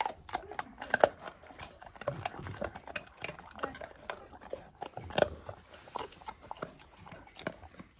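Bernese mountain dog gnawing and chewing a dried sinew treat, an irregular run of crunching bites.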